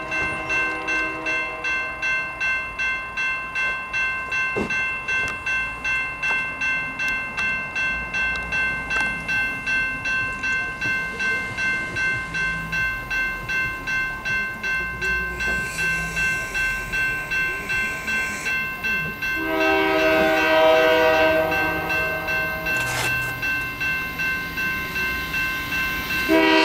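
Grade-crossing warning bell ringing steadily at about two strikes a second. From about two-thirds of the way in, the horn of the approaching Union Pacific freight locomotive blows over it, loudest at first and sounding again near the end.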